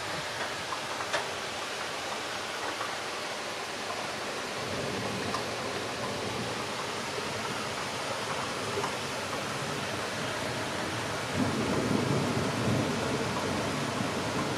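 Heavy rain pouring down in a steady hiss, with a few faint ticks of drops. A deeper rumble joins about a third of the way through and swells louder about three quarters of the way in before easing back.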